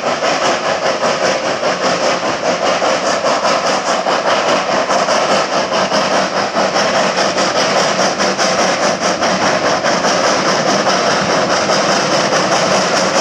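Rack-railway steam tank locomotive working hard as it pushes its coach up the grade, its exhaust making a fast, even chuffing that keeps up steadily throughout.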